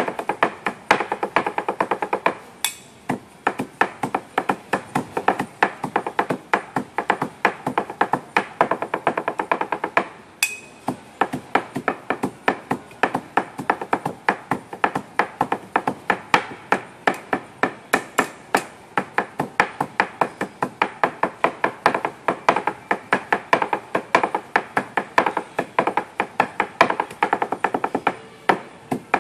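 Sisig being chopped fast and rhythmically on a chopping board: a drumming run of sharp blade strikes, several a second, pausing briefly twice.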